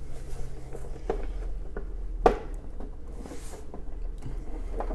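Short plastic clicks and light knocks as a power cord is handled and pushed into the socket on the back of a computer monitor, the loudest click about two seconds in, with a brief rustle just after.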